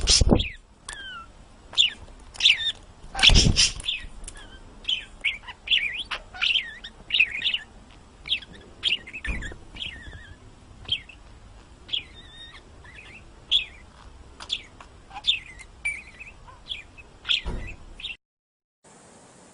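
Small bird chirping over and over in short, sharp, high chirps, with one loud rustling burst about three and a half seconds in. The chirping cuts off suddenly near the end.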